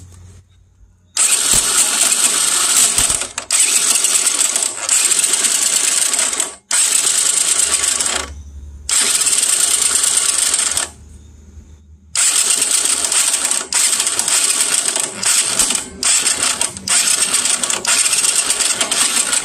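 Small motorcycle engine running with a loud, terrible-sounding mechanical rattle, typical of something loose or broken inside the engine. The noise begins about a second in and eases off briefly about three times.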